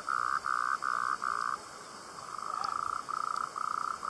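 An animal calling in a run of short, even, mid-pitched notes, about three a second. The run breaks off about one and a half seconds in and starts again about a second later.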